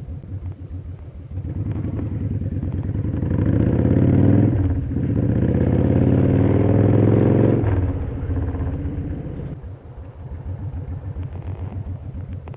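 Victory Vegas Jackpot's V-twin engine pulsing at low revs, then accelerating twice with rising pitch, a short break between the two pulls like a gearshift, before easing back to a slow rumbling beat.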